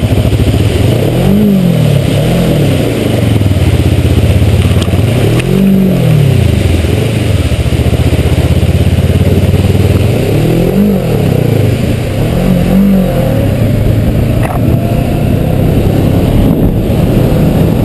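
Kawasaki motorcycle engine running while riding through standing water on a freeway, under a loud rush of wind and tyre spray. The engine note rises and falls briefly about five times.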